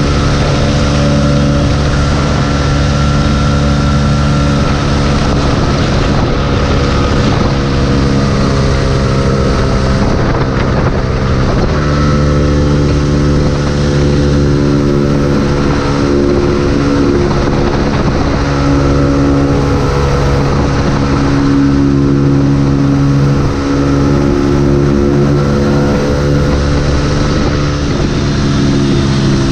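Yamaha YZF-R125's 125 cc single-cylinder four-stroke engine running at a steady cruising pitch under way, over wind noise on the microphone. About eleven and a half seconds in, the engine note breaks briefly and settles at a new pitch.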